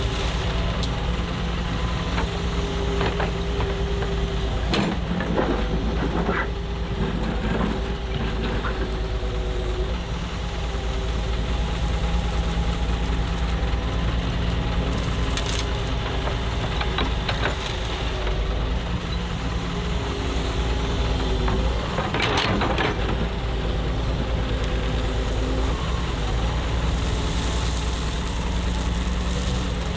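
Diesel engine of a Doosan DX140W wheeled excavator running steadily under load, its engine note shifting in pitch now and then. Short knocks and clatter come in two clusters, about five to nine seconds in and again a little past twenty-two seconds.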